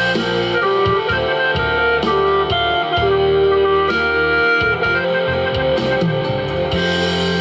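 Instrumental music, guitar-led, with sustained melody notes over a steady bass line and no singing.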